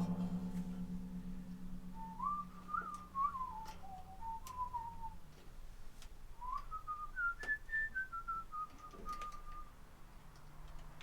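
A person whistling a tune in two short phrases, the pitch stepping up and down, with faint clicks of hand work under it.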